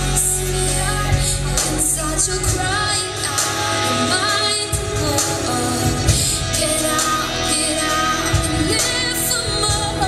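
A worship song with a female lead singer, the dancer's accompaniment music, with sung melody over a steady beat.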